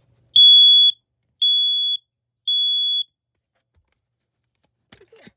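Smoke alarm sounding on its test button: three loud, high-pitched beeps, each about half a second long and a second apart, the temporal-three alarm pattern.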